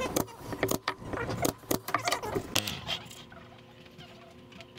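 A run of sharp clicks and knocks: a pneumatic brad nailer firing into the wooden box pieces as they are handled on the bench. After about three seconds this gives way to a quieter faint steady hum.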